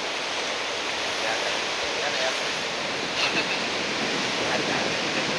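Ocean surf from a big post-typhoon swell breaking on the shore, a steady wash of rushing water with no pauses.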